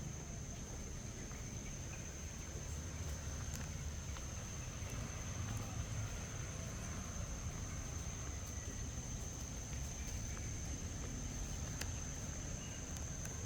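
Tropical forest ambience: a steady, high-pitched insect drone over a low rumble, with scattered faint clicks and footfalls.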